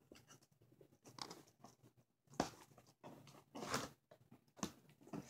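Taped cardboard packaging being cut and pulled open: a few faint, short crackling, tearing sounds.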